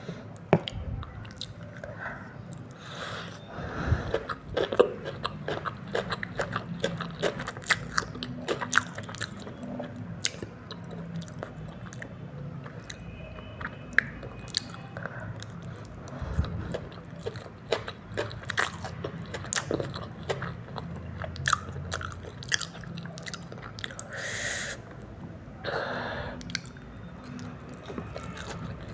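Close-miked eating sounds of noodles: wet chewing and smacking with many small clicks, and now and then a short slurp.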